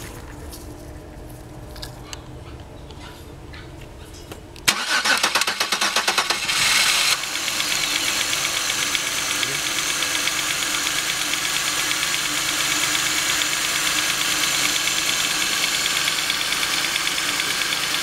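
A 2002 Chevrolet Venture's 3.4-litre V6 cranks on the starter for about two and a half seconds, starting roughly a third of the way in, then catches and runs steadily. It fires once the new camshaft position sensor is worked by hand during cranking to feed the computer a signal, which brings back the injector pulse: the sign of a failed cam sensor, as the owner suspected.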